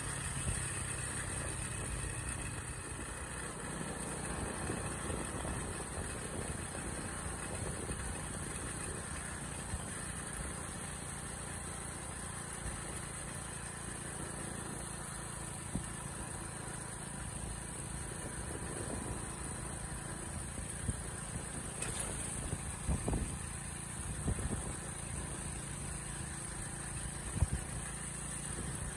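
Hero Splendor motorcycle's single-cylinder four-stroke engine running steadily while riding at a constant speed, with a few brief knocks in the second half.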